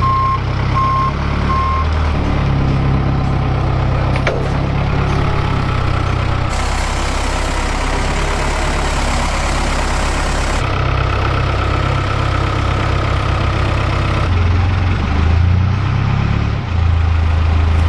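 Diesel engine of a rough-terrain telehandler forklift running as the machine drives, with its back-up alarm beeping a few times in the first two seconds.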